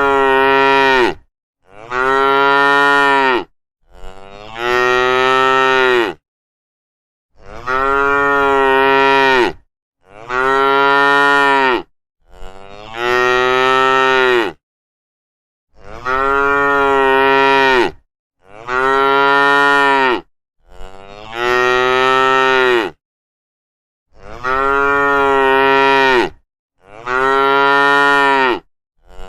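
Cattle mooing: a steady run of long, loud moos, each about two seconds, coming roughly in threes with short silent gaps between.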